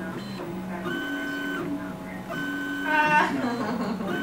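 Stepper motors of a MendelMax-style 3D printer whining as the print head traces the walls of a thin-walled PLA print. The steady tones switch on and off with each move, about once a second, and there is a louder, falling whine about three seconds in.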